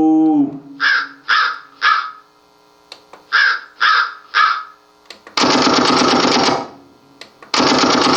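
Crow-cawing sound effect from a voice-effects mixer: two sets of three short caws. After them come two long, harsh buzzing bursts of about a second each.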